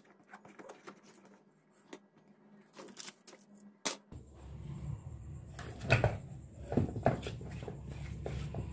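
Hands pressing and rubbing aluminium foil tape onto a plastic circuit-board cover: scattered soft crinkles, taps and clicks. About four seconds in, a low steady hum comes in under the handling noise, with a few louder knocks.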